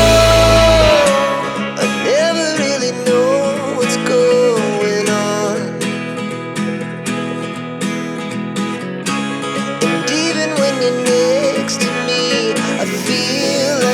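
Background music with guitar: a full, bass-heavy passage gives way about a second in to a lighter, guitar-led section with a melody line over it.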